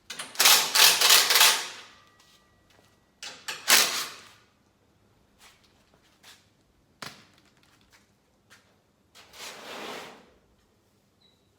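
Hand metalwork on a piece of steel: a loud run of quick knocks and scraping in the first second and a half, another short burst near four seconds, a single sharp knock about seven seconds in, and a softer scraping burst near ten seconds.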